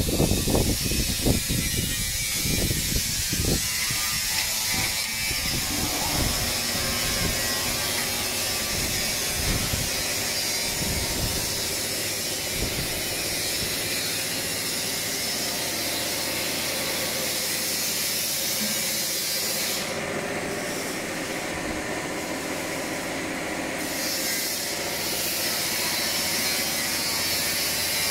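Metal feather plates of an iron peacock sculpture clicking and rattling against each other as a hand brushes across them, a rapid run of sharp clicks for the first five or six seconds. After that a steady mechanical hum with hiss carries on.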